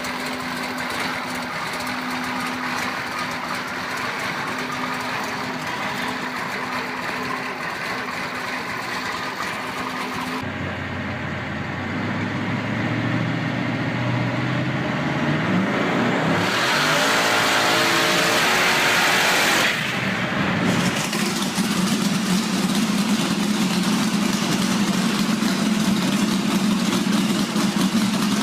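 Loud American muscle car engines in a series of cut-together clips. First an engine runs steadily, then after about ten seconds one revs up sharply, rising in pitch to a harsh, loud peak. Near the end an engine settles into a steady idle.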